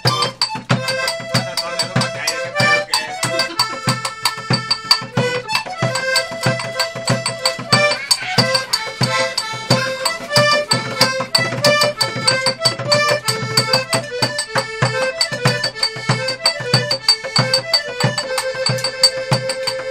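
Button accordion playing a lively folk melody, with a steady beat hand-drummed on a plastic bucket and metal percussion from a brass cup played with a metal rod.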